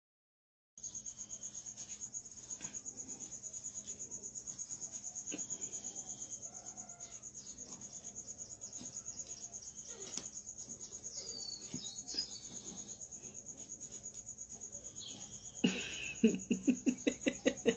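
A cricket chirping steadily in a rapid, high-pitched pulse, with faint scattered ticks. Near the end a quick run of louder, sharp knocks takes over.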